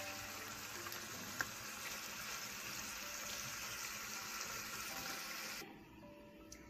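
Asparagus, zucchini and tofu sizzling and steaming in a hot pan as they are turned with tongs: a steady hiss that falls away about five and a half seconds in.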